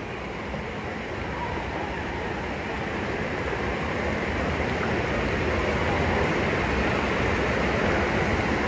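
Steady rushing road and wind noise of a moving vehicle, slowly growing louder.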